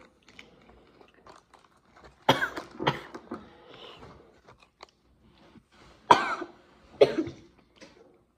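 A boy coughing: two coughs about two seconds in and two more about six seconds in, set off by a spoonful of ground cayenne pepper burning his throat.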